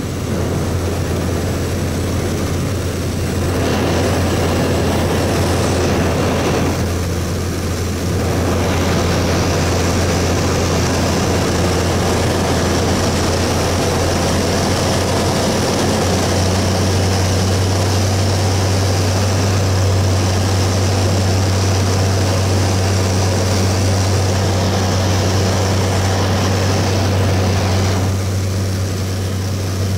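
Cabin noise of a Cessna 208B Caravan's single Pratt & Whitney PT6A turboprop and propeller on approach to landing: a steady low drone with airflow hiss. The low drone grows stronger about halfway through, and the hiss drops off near the end.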